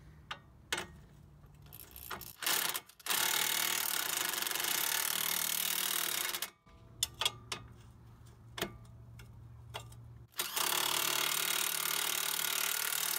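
Corded electric impact wrench hammering nuts down onto the suspension bolts in two runs of about three seconds each, one about three seconds in and one near the end. Short clicks and clinks of the socket and tool come before and between the runs.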